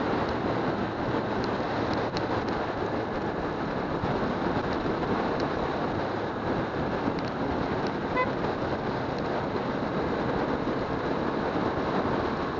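Motorcycle riding along a wet road: steady wind and road noise with the engine running underneath, no clear revving. A short beep about eight seconds in.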